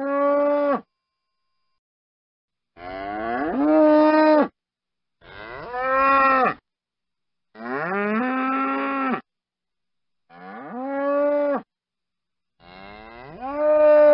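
Bull mooing: a series of about six short calls, each rising in pitch and then holding steady before stopping abruptly, with silent gaps between them.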